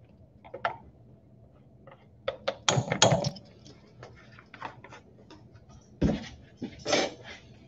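Scattered clinks and knocks of kitchen handling: a metal measuring spoon against a stainless steel mixing bowl and a spice jar handled on a stainless steel worktable. There is a cluster of louder knocks about three seconds in and two more sharp knocks near the end.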